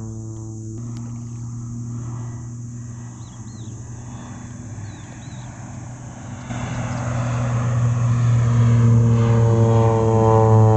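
Propeller engine of a crop-spraying plane, a steady drone that grows much louder about two-thirds of the way in as the plane comes closer.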